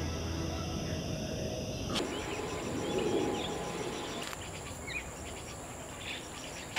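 A low, steady music drone fades out over the first two seconds. Then daytime forest ambience: an insect chirping in a fast, steady pulse, with birds chirping now and then.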